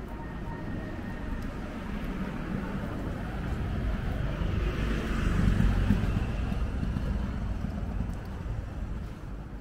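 A car driving past on a city street: tyre and engine noise grows louder, peaks a little past halfway, then fades, over a steady hum of distant traffic.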